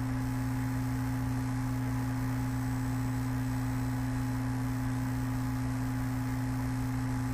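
Steady low electrical hum, two fixed tones one above the other with a light hiss over them, holding unchanged throughout.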